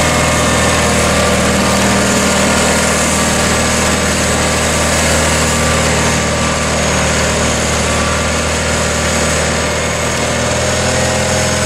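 John Deere 318 garden tractor's air-cooled two-cylinder Onan engine running steadily as the tractor drives along.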